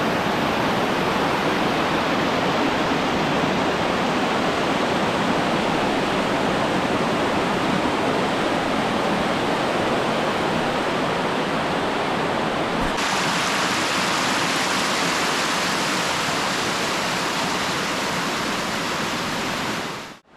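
Stinging Fork creek rushing down over rock: a loud, steady rush of falling water. Its tone turns brighter about two-thirds of the way through, and it cuts off just before the end.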